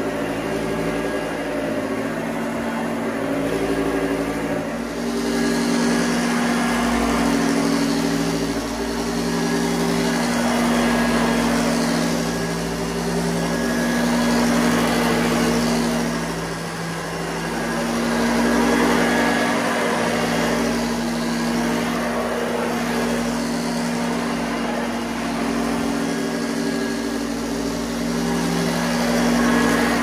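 Hoover Junior Exclusive U1206 upright vacuum cleaner running on carpet: a steady motor hum with a hiss of air over it, swelling and easing every few seconds as it is pushed back and forth.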